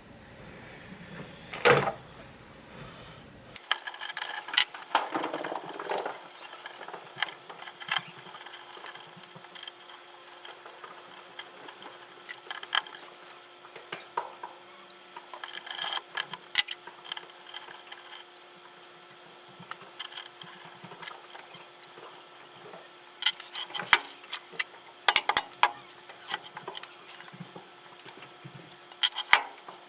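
Irregular metallic clicks and clinks of hand tools and small steel valve-train parts being handled while the valves and valve springs are taken out of an LS cylinder head, over a faint steady hum.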